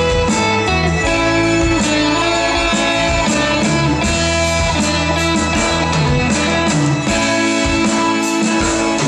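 Live rock band playing: electric guitar over a drum kit, loud and steady.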